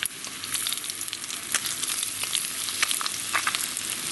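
Semolina-coated rotan (Amur sleeper) fish frying in a pan: a steady sizzle with frequent sharp crackles and pops.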